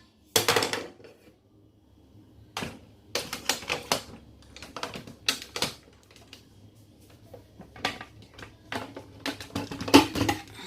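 Irregular clusters of hard plastic clicks and clatters as the parts of a Nescafe Dolce Gusto coffee machine are handled. The loudest knock comes near the end.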